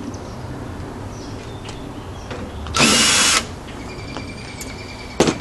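Cordless drill-driver spinning in one short whirr of about half a second, about three seconds in, backing a screw out of the back of a computer tower's case. A sharp click comes near the end.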